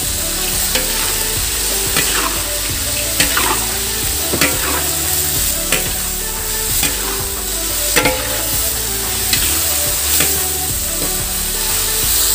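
Tempeh strips and cut long beans sizzling as they are stir-fried in a wide metal wok, with a metal spatula scraping and clinking against the pan at irregular intervals.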